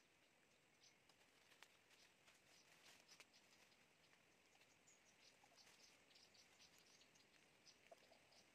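Near silence: faint crackles and clicks of dry bamboo leaves being handled on the forest floor, with many faint, short, high chirps in the background.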